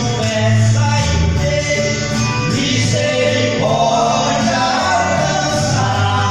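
Gospel song: voices singing together over instrumental accompaniment with a steady bass line.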